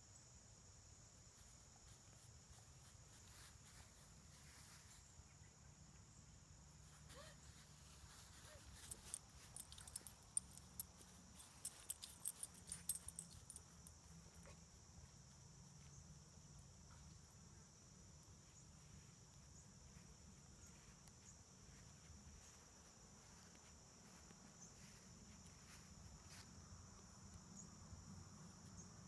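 Steady high-pitched chirring of insects, with a cluster of sharp clicks and snaps for several seconds about a third of the way in.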